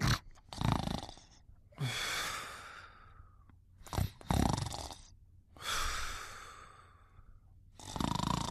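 Heavy, airy breathing of a sleeper snoring softly: short inhales, each followed by a longer exhale that fades away, about three breaths in all.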